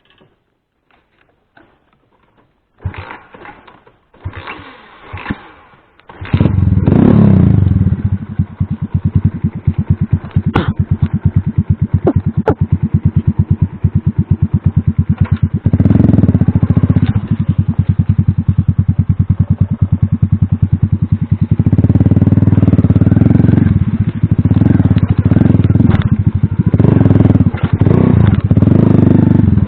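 A few short clattering knocks, then a small motorcycle engine starts about six seconds in and runs close by with a fast, even pulse, revved up several times in the second half.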